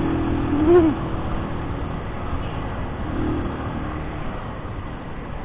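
Keeway CR152's single-cylinder engine running at low revs in slow traffic, with a steady hum that fades after about a second into the even noise of surrounding road traffic.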